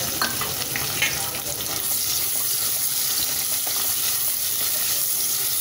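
Sliced onions sizzling steadily in hot oil in an aluminium pressure cooker as they are stirred with a spatula, with a few light knocks in the first second.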